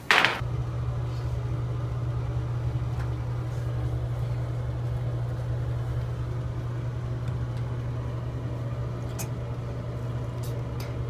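A steady low mechanical hum, with a short loud burst of noise right at the start and a few faint clicks near the end.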